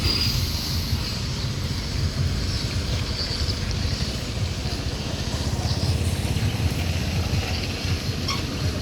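Heavy machinery engine running steadily with a low, even rumble.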